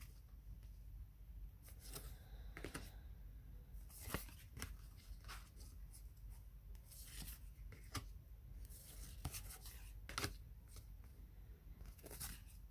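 Gold-foiled tarot cards being flipped through one at a time, each card slid off the front of the deck with a soft swipe. There are a dozen or so faint, short swipes at uneven intervals.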